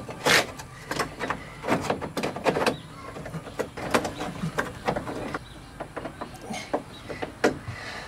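Irregular metallic clicks, knocks and scrapes as a VW Beetle door latch mechanism is pushed and worked into the steel door shell. It will not seat because the outside door handle is still fitted.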